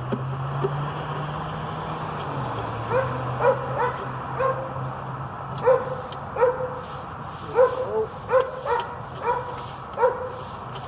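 A dog barking repeatedly in short, irregular barks and yips, over a steady low hum.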